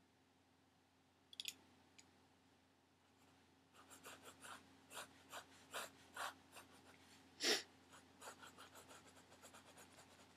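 Pencil sketching on a paper drawing pad: a light tap about a second in, then a few seconds in a run of short irregular strokes begins, one much louder than the rest, followed by quicker, lighter strokes near the end.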